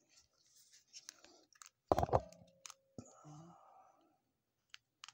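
Plastic clicks and light rustling from a plastic action figure and its loose parts being handled, with one louder knock about two seconds in.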